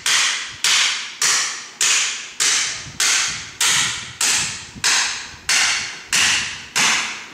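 Hammer blows on the end of a steel chair-frame tube, driving an old tube down inside a new one: about a dozen steady strikes, a bit under two a second, each ringing briefly as it fades.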